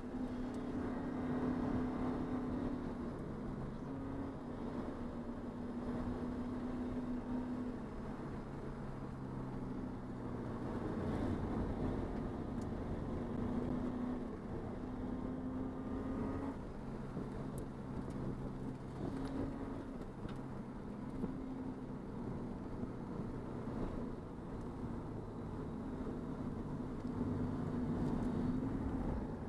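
Race car engine running, its pitch holding steady and then stepping up and down every second or two.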